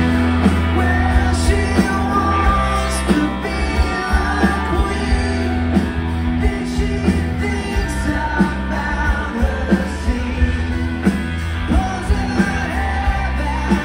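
Live rock band playing, with electric bass, a steady drum beat and guitar, and a voice singing over it.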